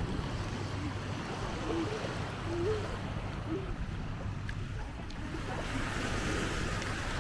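Small waves washing in shallow water at the shoreline, with wind buffeting the microphone; the wash brightens near the end.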